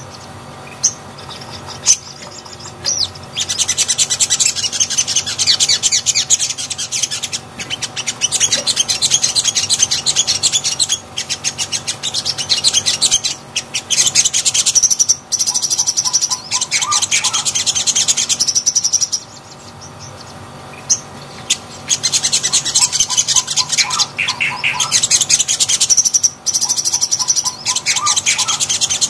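A caged sogon (sunbird) singing: long phrases of rapid, high twittering, each several seconds long, with short pauses between them.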